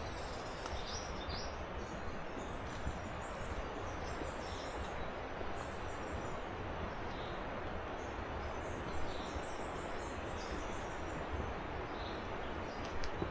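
Steady rushing of a river, with small birds chirping in short high calls over it, in clusters about a second in, around two and a half seconds in, and again between about nine and eleven seconds in.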